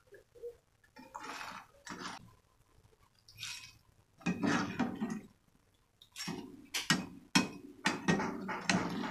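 A metal strainer scooping fried lumpia-wrapper strips out of a wok of hot oil. The strips rattle and the strainer scrapes against the pan while the oil sizzles, in irregular bursts that get busier and louder from about four seconds in.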